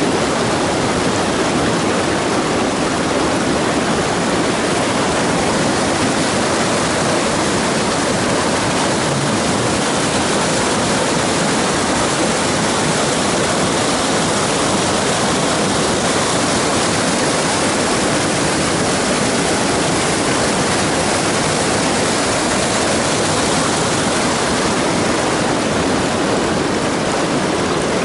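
Steady, loud rush of river water cascading over rock ledges and pouring through a narrow whitewater chute.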